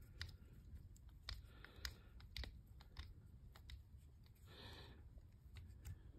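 Faint, irregular small clicks and ticks of a Wheeler FAT Wrench being turned by hand to drive a small optic-plate screw, with a brief rustle about four and a half seconds in. The wrench's torque limiter has not yet clicked off.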